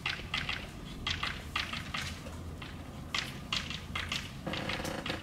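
Chalk writing on a chalkboard: a run of irregular short taps and scratchy strokes as words are chalked up.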